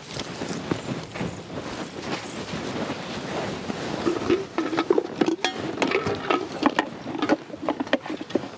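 Steel mixer-grinder jars knocking and clinking as they are handled and set onto their bases, amid rustling movement; the knocks come thickest in the second half.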